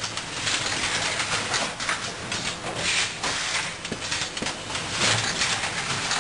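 Tin can tray wrap-around case packer running: continuous mechanical clatter and clicking of the line handling metal tins, with bursts of hiss recurring every couple of seconds.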